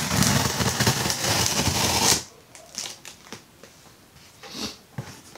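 Cardboard parcel of books being opened by hand: about two seconds of loud crinkling and tearing of packaging, stopping abruptly, then quieter handling with a few light knocks.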